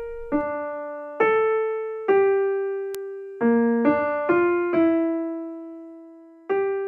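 Slow, gentle solo piano melody, single notes struck one at a time and left to ring and fade, sometimes two close together.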